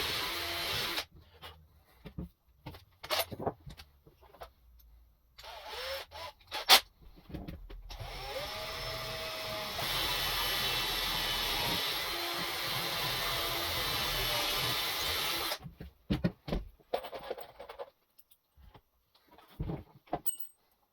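Power drill running in bursts: a run that stops about a second in, a short run about six seconds in, and a long steady run of about seven seconds starting about eight seconds in. Knocks and clicks of tool and wood handling come between the runs.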